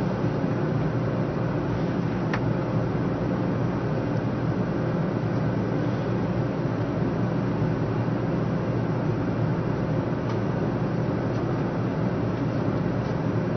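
Steady hum and rush inside a stationary 500 series Shinkansen car standing at the platform, with two faint ticks.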